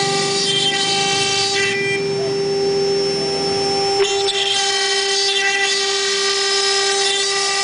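CNC router spindle running with a steady high whine while it cuts 4 mm Bond aluminium composite panel. The cutting tone shifts about two seconds in and again after a short click about four seconds in.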